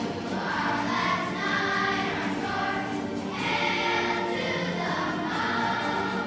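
Fifth-grade children's choir singing a song together, with many long held notes.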